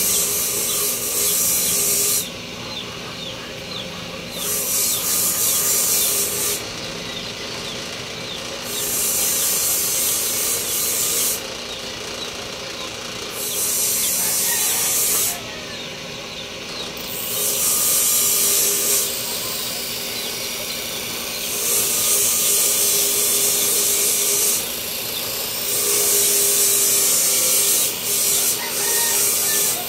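Hissing, scraping abrasion of an abrasive being worked over a piece in passes of about two seconds, with pauses of about two seconds between. In the second half the passes run longer, with only brief breaks.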